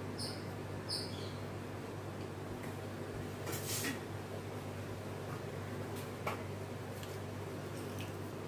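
Quiet room tone with a steady low hum, a few faint clicks and a brief rustle about three and a half seconds in.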